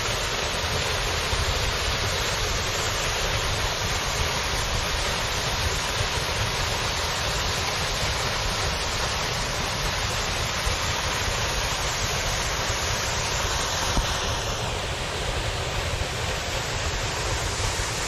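Waterfall pouring into its plunge pool: a steady rushing of falling water, with a slight change in tone about two-thirds of the way through.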